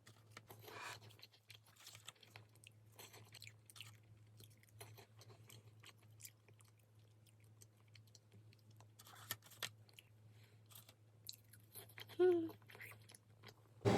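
Faint close-up chewing of food, with scattered soft crunches and mouth smacks over a low steady hum.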